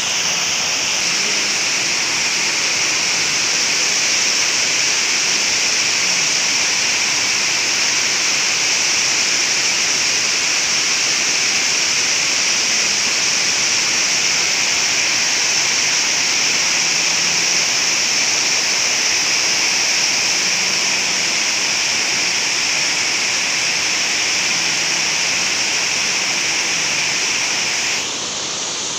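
Water pouring over a low concrete weir into a churning pool: a steady, loud rush of falling water, dipping slightly near the end.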